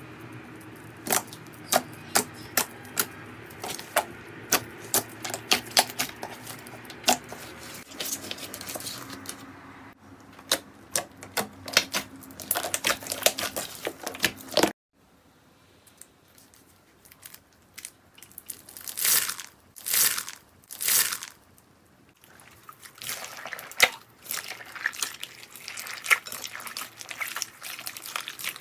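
Slime being played with by hand: sharp pops and crackles as it is pressed and stretched. About fifteen seconds in the sound cuts to another clip with a few longer squelches and more crackling.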